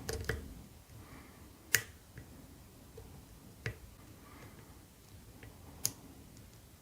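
Lock pick working the pins of a BASI K10 ten-pin padlock held under tension: a few sharp, isolated metallic clicks spaced about two seconds apart, the loudest about two seconds in.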